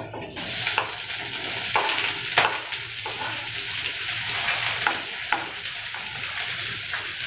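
Chopped onions sizzling as they hit hot oil in a kadai, the start of sautéing them with whole spices. The hiss starts just after the onions go in and holds steady, with several sharp clinks of a metal ladle.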